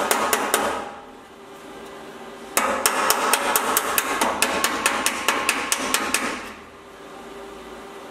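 Hammer and dolly on a sheet-steel repair panel at the bottom of a car door frame: quick light hammer taps, about five a second, in two runs with a short pause between. The taps are bringing the repair panel's edge into line with the door frame before welding.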